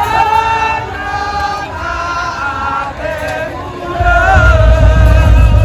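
Madurese daul music: a wavering melodic line, joined about four seconds in by a heavy bass drum beat that becomes the loudest part.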